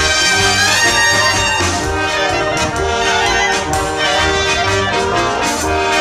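Small brass band playing live: tuba, tenor horns and trumpets holding sustained notes over a drum kit, with a regular beat in the bass.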